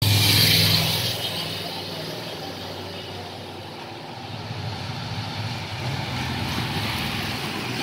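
Motor-vehicle noise, loudest in the first second as something passes close, then the engine of a race escort motorcycle growing louder as it approaches behind a small bunch of road cyclists.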